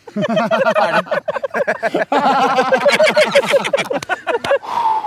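A group of young men laughing hard together in quick, choppy bursts of several voices at once, trailing off into one long breathy vocal sound near the end.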